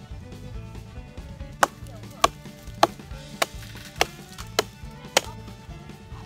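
Estwing hatchet chopping into a log, about seven sharp strikes roughly every half second or so from about a second and a half in, over background music.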